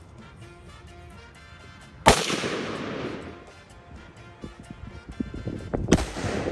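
A 5.56 NATO green-tip (62-grain) rifle shot about two seconds in, its report trailing off over about a second. A second, quieter sharp crack comes near the end, and background music plays throughout.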